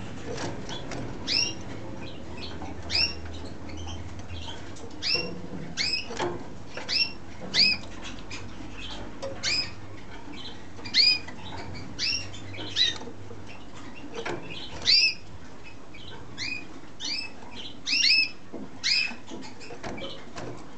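Male red mosaic canary giving short, clear call notes, each a quick upswept chirp, repeated about once a second at uneven intervals, with a few wing flutters as it moves about the cage.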